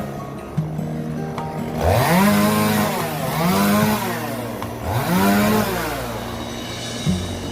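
Chainsaw revving up and dropping back four times in a row, each rise and fall in pitch lasting about a second, after a lower, steadier couple of seconds at the start.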